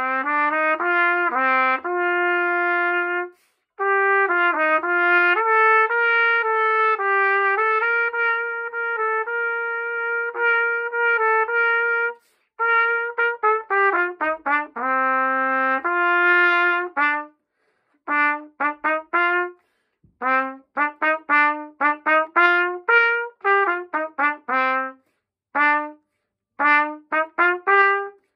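Solo trumpet playing a melody unaccompanied: long, connected held notes for the first half, then short, detached notes separated by brief rests from a little past halfway on.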